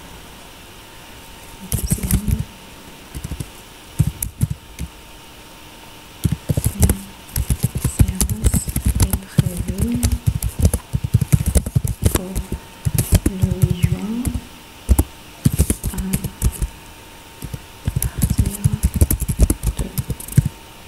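Typing on a computer keyboard: key clicks come in quick uneven bursts separated by short pauses.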